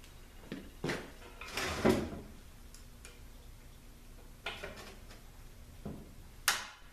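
Metal transmission parts and hand tools clinking and knocking: a few separate clanks, with a longer scraping clatter about two seconds in and a sharp knock near the end.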